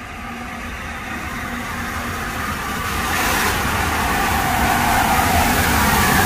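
LNER Class A4 steam locomotive No. 4498 and its train approaching at speed, the running noise growing steadily louder as it nears.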